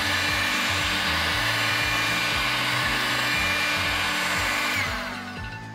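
Handheld hot-air heat gun blowing steadily on its high setting over a PS3 motherboard's chip, heating the board to reflow the solder against the yellow light of death. The rush of air fades out about a second before the end, leaving background music.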